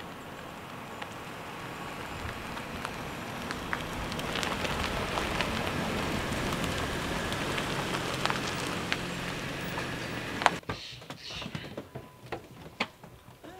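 A car rolling slowly over a gravel road: tyres crackling with scattered stone ticks over a low engine hum. The noise stops abruptly about ten and a half seconds in, leaving a few faint ticks.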